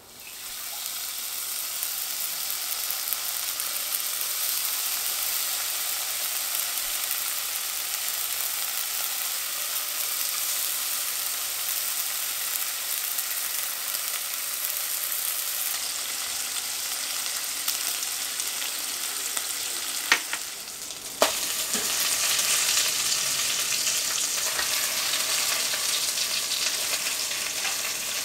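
Bacon sizzling as it fries in a hot enamelled pot, a steady crackling hiss. About twenty seconds in it briefly dips, two sharp knocks are heard, and the sizzling comes back louder.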